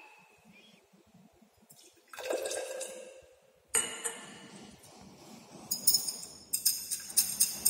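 Water poured into a glass Nessler cylinder to dissolve a sodium chloride sample, then a glass rod stirring inside the cylinder, clinking rapidly against the glass from about six seconds in.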